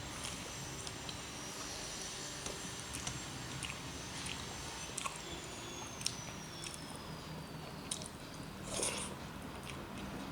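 A person eating rice and curries: chewing with soft, scattered mouth clicks, and a brief louder noise near the end.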